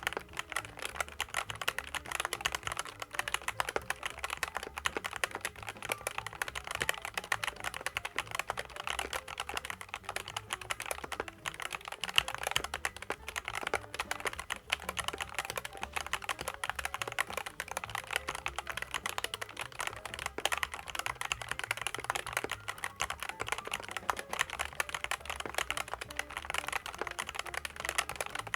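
Fast, continuous typing on a SKYLOONG GK75 mechanical keyboard with Skyloong optical yellow switches and PBT keycaps: a dense, steady stream of key clacks.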